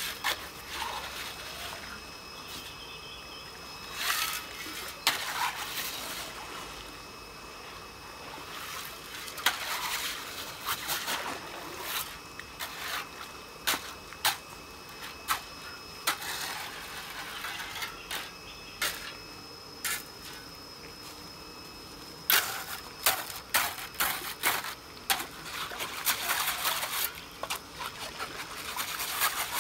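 A shovel churning the waterlogged gravel, sand and charcoal of a fish-farm wastewater filter to unclog it. The sound is irregular splashing and sloshing with sharp knocks, coming thick and fast near the end.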